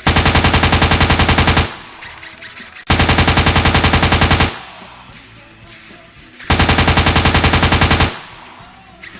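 Machine-gun sound effect: three identical bursts of rapid automatic fire, about a dozen shots a second, each lasting about a second and a half, with background music between the bursts.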